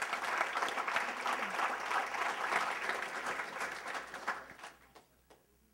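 Audience applauding, then dying away about five seconds in with a few last scattered claps.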